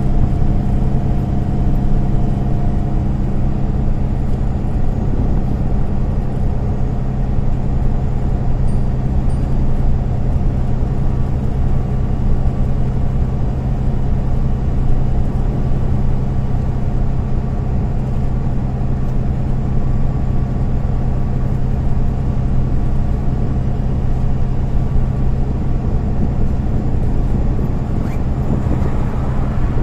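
Inside a MAN Lion's City A20 NL city bus on the move: the engine runs at a steady pitch under constant road and tyre noise.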